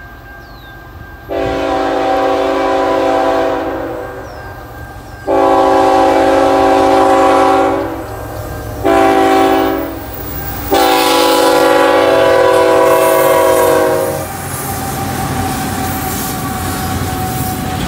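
Canadian National freight locomotive's multi-chime air horn sounding the grade-crossing signal: two long blasts, one short, then one long, as the train approaches the crossing. After the last blast, the locomotives and train run past with a steady rumble and wheel clatter on the rails.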